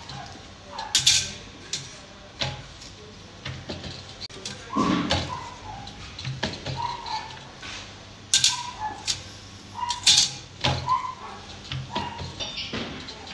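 Steel saw blades and a wooden silkscreen frame handled while the blades are screen-printed: sharp metallic clicks and knocks, a dull thud about five seconds in, and repeated short high-pitched squeaks.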